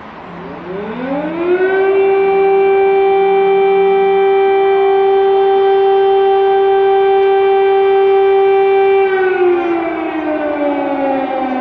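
Civil-defence air-raid siren winding up over about a second and a half, holding one steady wail, then beginning to wind down about nine seconds in.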